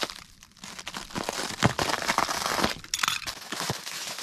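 Hose packaging being torn open and handled, with a run of crinkling and crackling that dips briefly just after the start.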